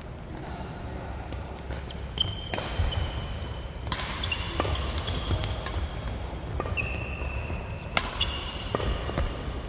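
Badminton rally: several sharp racket strikes on a shuttlecock a second or so apart, mixed with short high squeaks of court shoes on the wooden gym floor, all echoing in a large hall.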